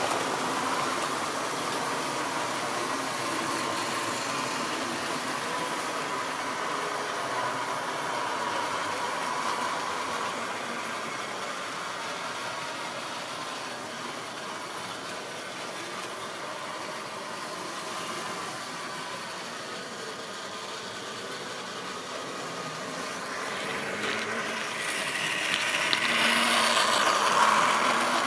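Model railway goods train running round the layout, its motor whining steadily under the running noise of the wagons on the track. It fades as the train moves to the far side, then grows louder again as the wagons pass close by near the end.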